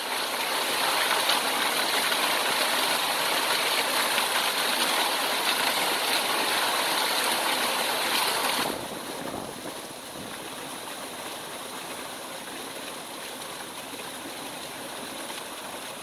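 Waterfall pouring into a shallow rock pool: a steady rush of falling water, louder for the first nine seconds or so, then dropping to a quieter, even rush.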